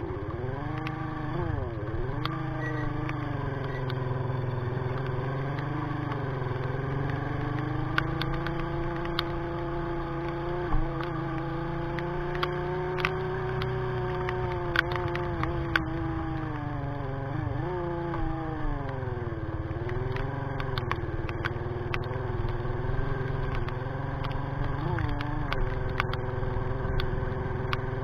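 Sigma 250cc motorcycle engine running under way, its pitch rising and falling as the throttle is opened and eased off, with several brief dips. Scattered sharp ticks sound over it.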